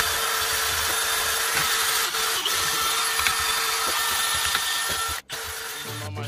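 Makita 18V cordless drill spinning a wire brush against the rusty hub face of a brake disc, a steady whirring, scratchy scour of wire on metal. It cuts out for an instant about five seconds in and carries on more quietly. The hub is being cleaned so a wheel spacer will sit flush.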